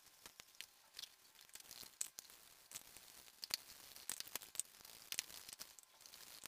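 Faint scrubbing of a soapy sponge on a motorcycle helmet's plastic shell: irregular rubbing with many small scattered clicks and crinkles.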